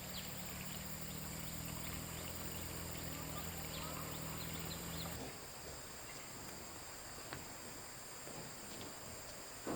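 Outdoor rural ambience of insects chirring steadily, with short high chirps. Under it a low steady hum runs for the first half, then cuts off suddenly about five seconds in.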